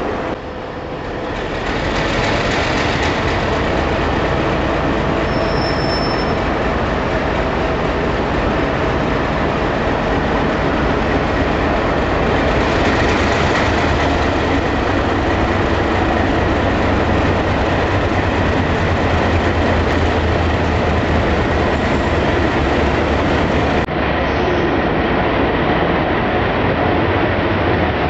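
ALCO-built Renfe 321-series (ex-2100) diesel locomotive running as it hauls a train slowly past, its engine's low drone growing stronger as it comes close, with some wheel squeal from the rails.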